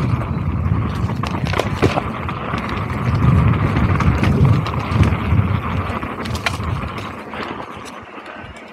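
Mountain bike descending dry dirt singletrack: a steady low rumble of tyres rolling over the dirt, with scattered rattles and clicks from the bike over bumps. It quietens near the end.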